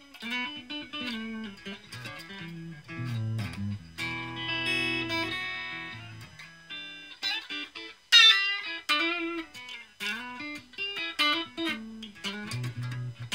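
Electric guitar played through a Raizin Vintage Champ Box pedal: a clean, amp-like tone picking single-note lines and short chords. About 8 seconds in comes the loudest hard-picked note, bent and held with vibrato.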